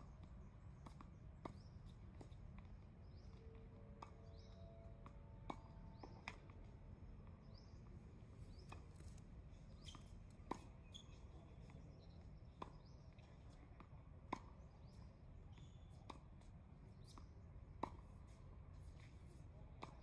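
Tennis ball struck by rackets and bouncing on the court during a rally: sharp single pops every one to three seconds, the nearer racket hits the loudest, over a low steady rumble.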